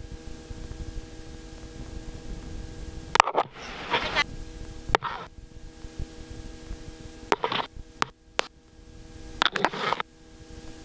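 Steady electrical hum of several constant tones on a helicopter's headset intercom and radio line, broken by a few brief bursts of static and clicks, like radio squelch breaks between transmissions.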